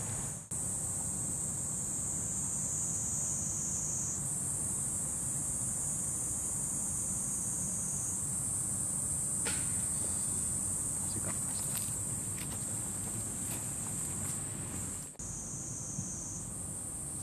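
Cicadas droning in a steady high-pitched chorus, with a few faint clicks about midway.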